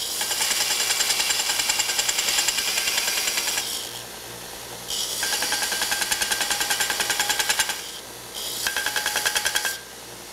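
Grizzly 2x72 knife belt grinder with its abrasive belt grinding a flat steel bar pressed against it, in three passes with a fast pulsing through each, the belt running quieter between them. A test grind under pressure, giving a smooth, consistent grind with the belt tracking dead center.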